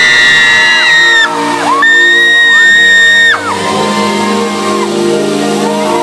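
Loud pop concert music through an arena PA with fans screaming close to the recording phone: long, high held screams that swoop up, hold and fall away, one after another.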